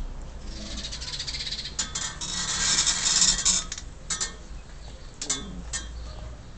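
A Rottweiler puppy and an adult German Shepherd play-fighting: a rasping, snarl-like noise for about three seconds, then a few short clicks.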